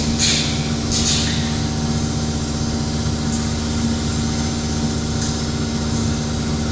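Vacuum tanker's engine and vacuum pump running steadily, drawing water out of a cesspit through the suction hose. Twice in the first second and a half there is a short hissing rush.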